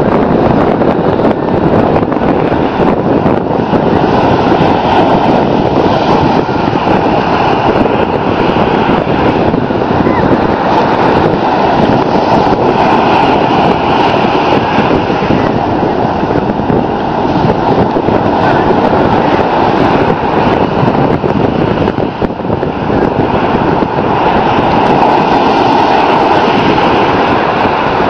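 Loud, steady rush of wind on the microphone mixed with the wash of breaking ocean surf.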